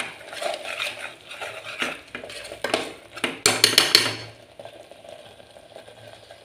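A plastic spatula stirring and scraping thick masala in a metal pressure cooker pot, in a run of short scrapes and clinks against the pot. The strokes are busiest a little past halfway through and grow faint near the end.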